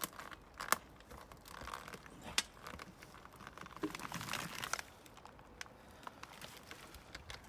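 Hand digging in soil and rubble: irregular scrapes and knocks of a digging tool, with a longer scraping rustle about four seconds in.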